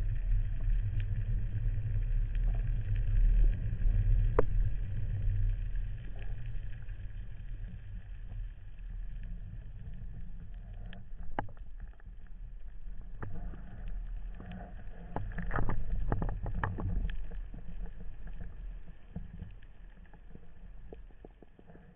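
Steady low rumble of water against the camera during underwater spearfishing, loudest in the first few seconds. Scattered sharp clicks and ticks come through, most of them about halfway in.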